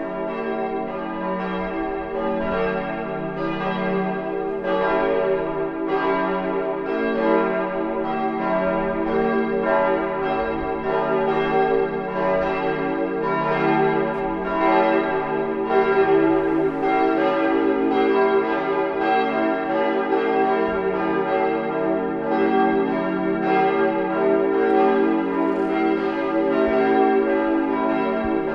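Full peal of the Pauluskirche's church bells, all bells swinging at once so their strokes overlap in an irregular, continuous clangour, rung to call to Sunday service.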